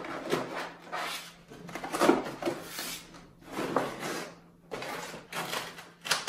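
A flexible backdrop sheet being handled and pushed into a fabric photo light box: irregular rustling and rubbing against the box, with a louder bump about two seconds in.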